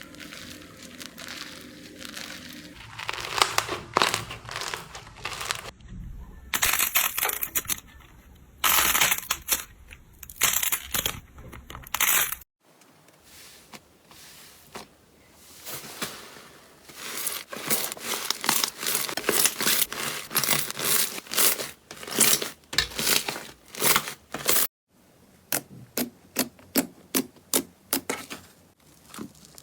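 Slime being squeezed, pressed and poked: crackling, crinkly rustling and sharp clicking pops in several separate takes that each cut off suddenly, ending in a quick run of pops.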